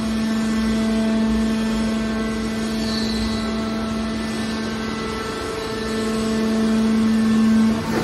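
Hydraulic power unit of a steel baler shear running with a steady hum while the machine pushes out a compressed bale of scrap steel wire. The hum grows louder over the last couple of seconds, then eases off right at the end.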